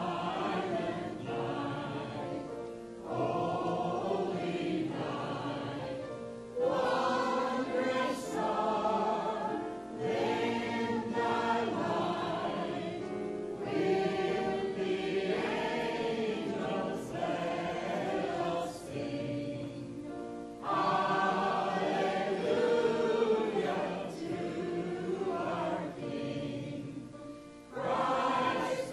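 Mixed church choir of adults and children singing Christmas cantata music in sustained phrases of a few seconds each, with short breaks for breath between them.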